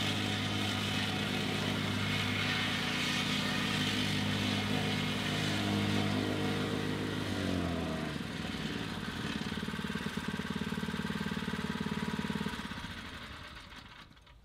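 Small petrol engine of a vibratory plate compactor running steadily at working speed. About halfway through it drops to a lower, pulsing idle, then dies away near the end.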